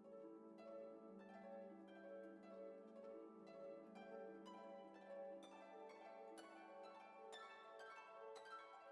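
Quiet background music of plucked-string notes over a steady low held tone.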